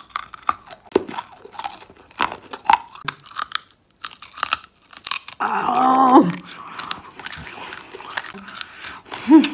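A hard mango-flavoured ring candy being bitten and crunched between the teeth, with a rapid run of sharp cracks. About five and a half seconds in there is a brief vocal sound from the eater, then a few more crunches.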